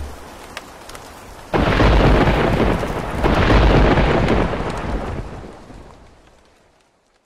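Steady rain, then a sudden loud thunderclap about a second and a half in and a second roll of thunder a couple of seconds later, both rumbling away until the sound fades out near the end.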